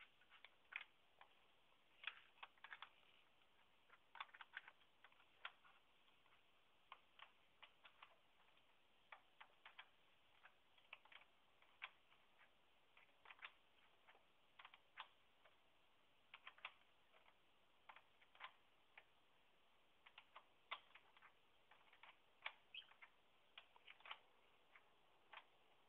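Faint, irregular clicks and taps, often a few in quick succession, from unscrewing the car battery's hold-down base.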